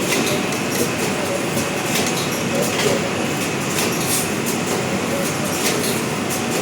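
Automatic four-colour UV screen printing machine running: a steady mechanical din with frequent short clacks.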